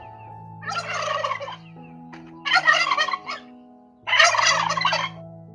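Turkey gobbling three times, each gobble a rapid rattling call lasting about a second.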